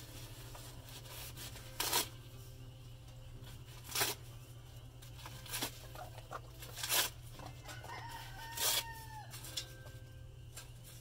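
A rooster crowing once in the background about eight seconds in, one arching call. Between that and the other moments come several short, sharp noises, about two seconds apart, which are the loudest sounds.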